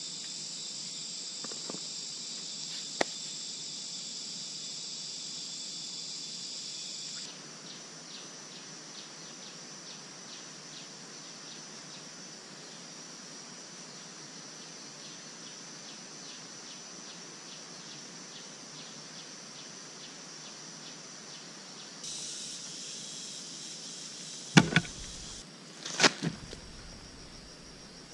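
Steady high-pitched chorus of insects such as crickets, shifting abruptly in pitch and level about seven seconds in and again about twenty-two seconds in. Near the end, two loud sharp thumps about a second and a half apart.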